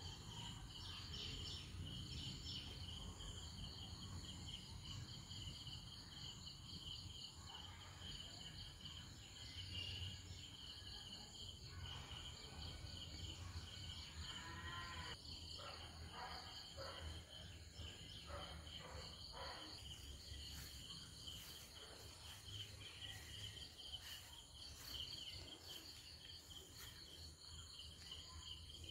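Faint insect chorus: steady, fast-pulsing high trills at two pitches, with a low background rumble.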